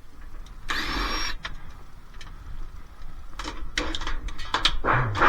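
A power screwdriver with a Torx bit whirs briefly as it backs out a screw from a dishwasher panel, its pitch rising as it spins up. Later comes a run of light clicks and knocks as the screw and panel are handled.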